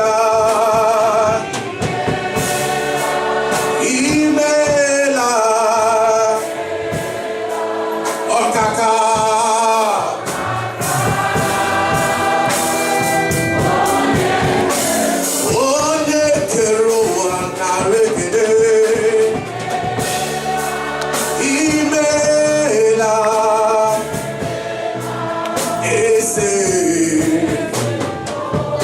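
Gospel worship song: a choir of voices singing a melody with vibrato over sustained musical accompaniment.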